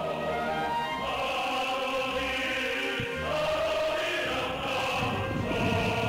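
Background music: a choir singing long held notes.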